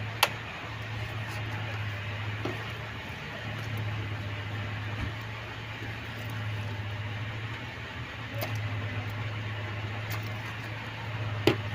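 A few sharp metallic clicks of hand tools working under a car's hood, over a steady low hum.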